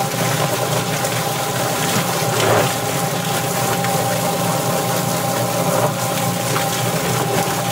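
Yardbird drum chicken plucker running: its motor spins the rubber-fingered plate with the water spray on, a scalded chicken tumbling against the fingers as its feathers are stripped. A steady hum and whine under a hiss of spraying water.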